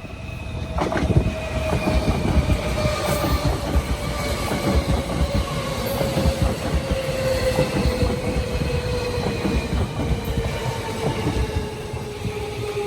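Tobu Railway electric train moving through the station, its motor whine falling slowly and steadily in pitch as the train slows. Wheels clatter and knock on the rails beneath the whine.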